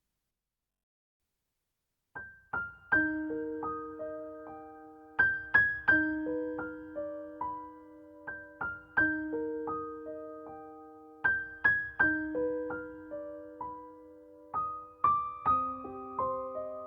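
Background music of slow, gentle piano notes, mostly broken chords that ring and fade. It starts about two seconds in after silence.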